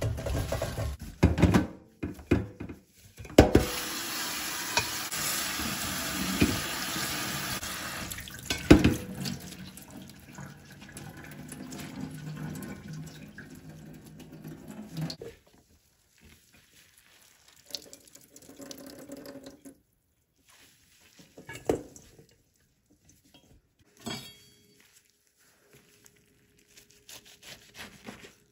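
Kitchen tap running steadily into a steel sink over blanched spinach in a plastic colander, cooling it after a 30-second boil, with a few knocks of the pot and colander being handled. The water stops about halfway through, leaving quieter handling sounds and a few sharp knocks.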